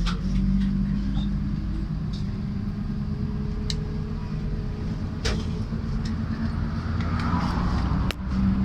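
MAZ-103 city bus running, heard from inside the cabin as it pulls away from a stop and drives on: a steady low drone that shifts in pitch a few times, with a few sharp knocks or rattles.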